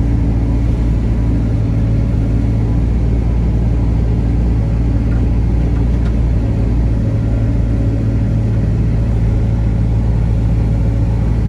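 Heavy farm diesel engine running at a steady speed: a constant low drone with no revving.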